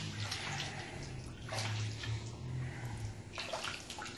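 Water sloshing and swishing in a gold pan as it is swirled to wash the light material off gold concentrates, leaving the black sand. Two stronger swishes come about a second and a half in and near the end, over a low steady hum.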